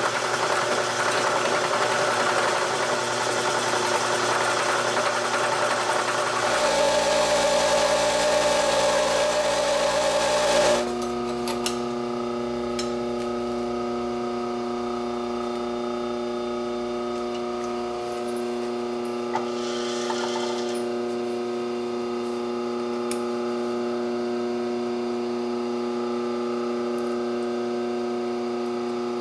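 Milling machine spindle running and cutting into an aluminium block, changing pitch partway through. About eleven seconds in, the cutting noise drops away and a quieter, steady machine hum carries on, with a brief hiss about twenty seconds in.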